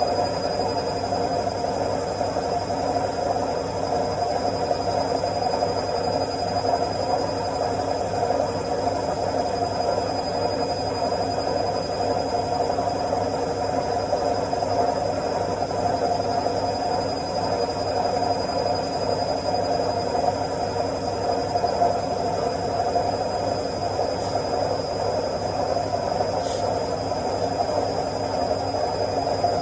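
Washing machine in its spin cycle, the drum spinning at a steady speed with an even whirring rush and a faint constant high whine.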